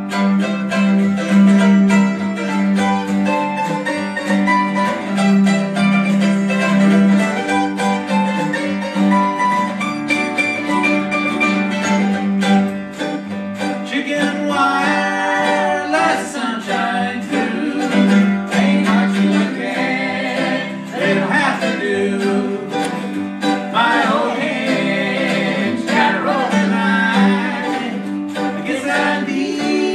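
Live acoustic country band playing: strummed and picked acoustic guitars over a plucked upright bass, with a string instrument played on the lap. The first half is instrumental, then a man's voice comes in singing about halfway through.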